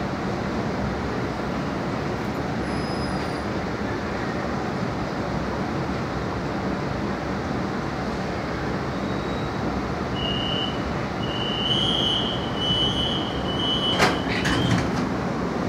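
Beijing Subway Line 7 train running between stations, heard from inside the car as a steady rumble of wheels and running gear. In the last third a high thin squeal comes and goes in short stretches, and a sharp knock sounds near the end.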